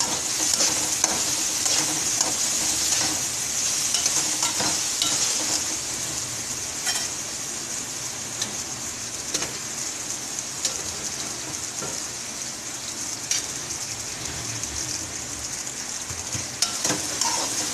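Chicken, capsicum and carrot masala sizzling in oil in an aluminium kadhai, with a slotted metal spatula scraping and clicking against the pan as the freshly added salt is stirred through. The sizzle is a steady hiss under the spatula's scattered clicks.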